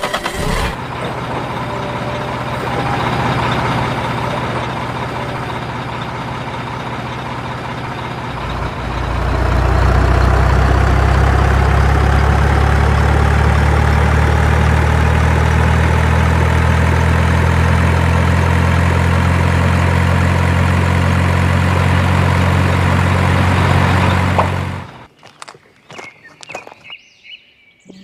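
Engine of a small home-built tractor running steadily, growing louder about nine seconds in and holding there, then cutting off suddenly near the end, followed by a few faint clicks.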